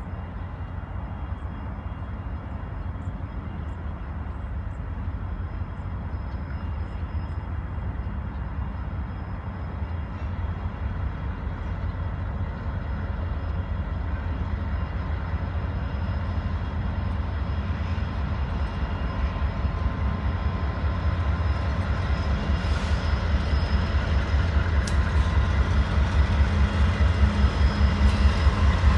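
Union Pacific diesel freight locomotives leading a loaded grain train approach with a steady low engine rumble that grows gradually louder as the lead unit draws level near the end.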